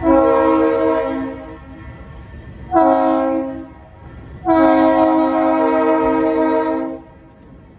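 A diesel freight locomotive's air horn blows three blasts, long, short, long, each a chord of several notes held steady. It is the end of a road-crossing warning as the locomotive nears a grade crossing.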